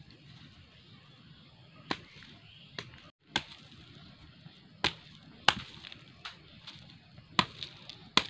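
A machete chopping cassava tubers off the stem: about eight sharp strikes, irregularly spaced, roughly one every second.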